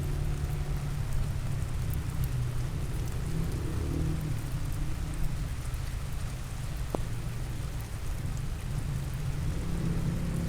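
Steady rain falling, with fine drop ticks over a continuous low rumble.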